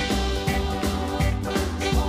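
Music with a steady beat and a pulsing bass line.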